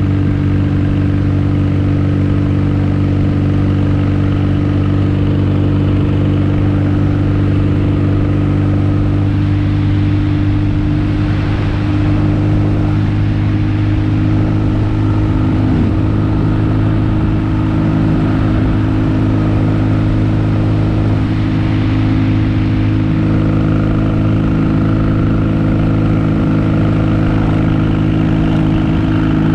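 Kawasaki KZ750 motorcycle engine running at a steady cruising speed, its pitch holding even, with a brief dip and recovery in pitch about halfway through.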